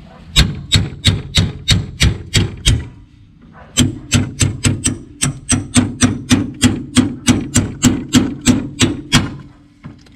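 Claw hammer banging out a stuck bolt from a golf cart's mounting bracket, metal on metal. Sharp blows come about three a second, in two runs with a short pause a few seconds in.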